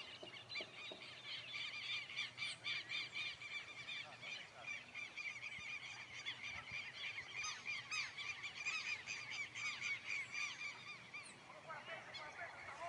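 A dense chorus of short, high chirping animal calls, several a second and overlapping, thinning near the end.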